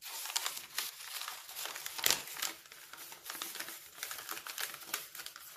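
Rolled diamond painting canvas being rolled back the opposite way to flatten it, its stiff backing and plastic cover film crinkling and crackling, with one louder crackle about two seconds in.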